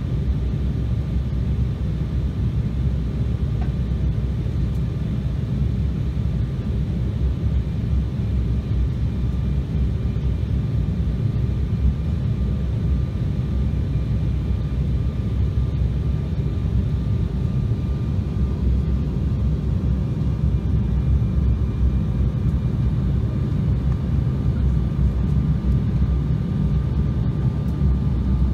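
Cabin noise inside an Embraer E-Jet airliner on its descent to land: a steady low rumble of engines and airflow, with a faint steady whine above it.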